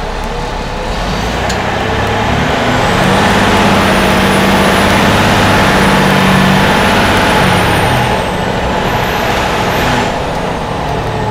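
Diesel engine of a 2008 Seagrave fire engine, heard from inside the cab, pulling away and accelerating. The revs climb over the first few seconds, hold, then ease off about eight seconds in, with a thin high whine rising and falling along with them.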